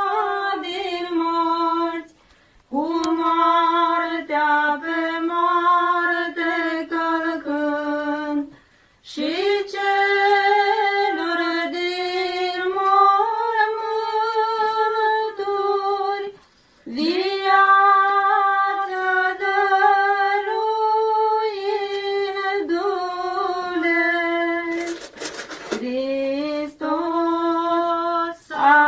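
A woman's unaccompanied voice singing an Orthodox chant melody in long held phrases, with short breaks for breath about 2, 9 and 17 seconds in. A brief rushing noise cuts across the singing near the end.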